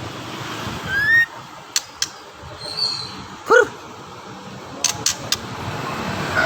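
White-rumped shama giving a short rising whistle, with several sharp clicks around it. About three and a half seconds in comes one short, louder yelp, the loudest sound here.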